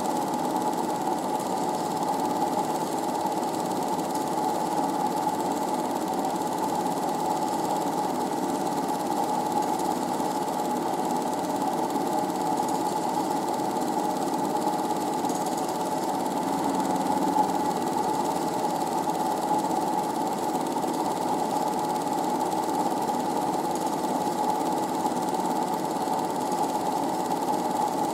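Home-movie film projector running steadily, its motor and film-transport mechanism giving an even mechanical whir.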